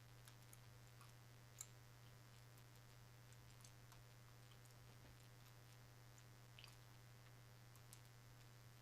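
Near silence: a steady low hum with a few faint scattered clicks, the clearest about one and a half seconds in.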